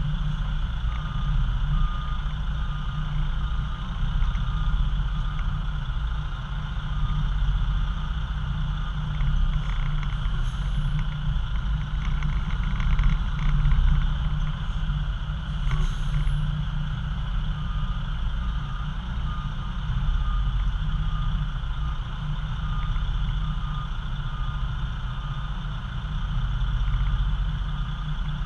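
Semi-trailer truck's diesel engine running with a steady low rumble as the rig reverses, over a high-pitched reversing alarm beeping at an even rate; the beeping stops for several seconds in the middle and then resumes.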